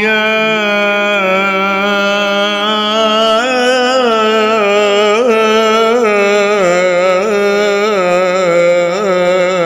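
Male voice singing an Arabic religious nasheed, holding one long ornamented melisma whose pitch wavers and turns, over a steady low drone.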